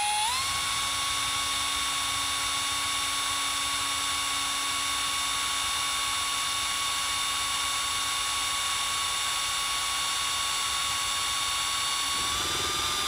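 Small electric drill running steadily with a needle clamped in its chuck, slowly boring a tiny hole into a puppet's hard eye. A steady high motor whine that steps slightly higher in pitch near the end.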